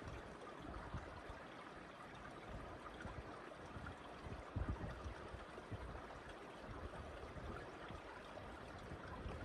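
A small mountain stream running among boulders: a faint, steady rush of water.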